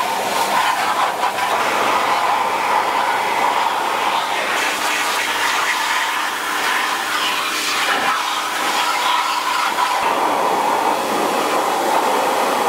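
Pressure washer jet spraying water onto and into a bare aluminium engine block, a steady loud hiss of spray against metal.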